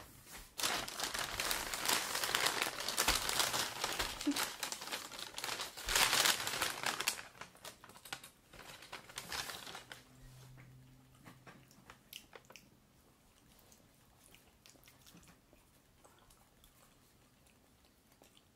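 Paper takeout bags crinkling and rustling loudly as they are set down, opened and rummaged for about seven seconds. After that, quieter scattered crunches of french fries being bitten and chewed.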